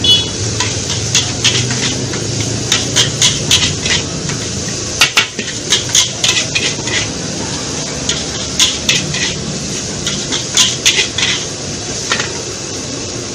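Metal spatula clanking and scraping against a steel wok as rice is stir-fried, in irregular clusters of sharp strikes over a steady background of frying.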